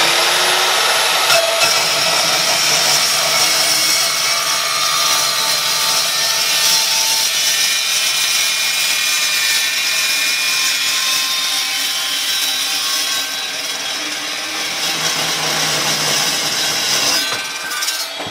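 DeWalt metal-cutting chop saw cutting through steel square tubing: a loud, continuous screech with a high-pitched ring from the blade biting the steel. The noise drops off near the end as the cut finishes.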